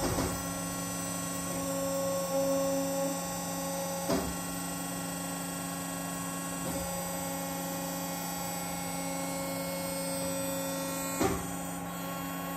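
Steady machine hum of a rope pull-test rig running as it takes up tension on a rope wrapped around a gold tail rope brake. A few sharp clicks come through, the loudest near the end, while the load builds.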